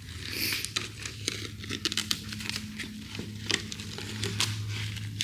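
Irregular crinkling and crackling of material being handled, over a steady low hum.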